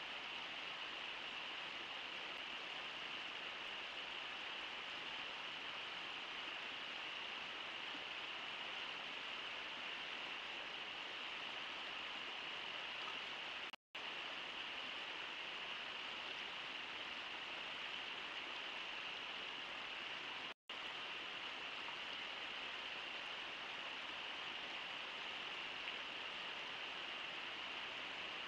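River water rushing steadily over rocks, an even hiss that cuts out completely for an instant twice, about 14 and 21 seconds in.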